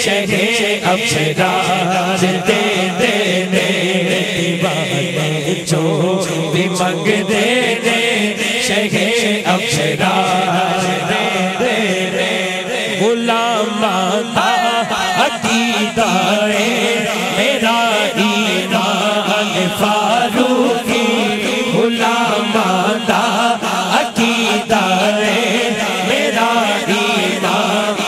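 Devotional naat singing: a male lead reciter singing into a microphone with a group of men chanting along behind him, continuous and steady in loudness.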